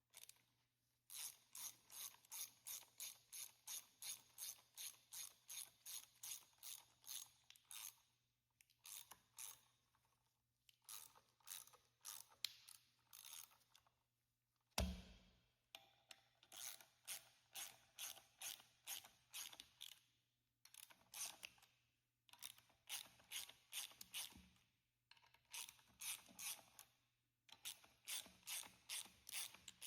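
Hand ratchet wrench clicking in steady runs of about three to four clicks a second, stopping briefly between runs, as bolts are turned to jack the winch cover plate off its base. A single heavier thump about halfway through.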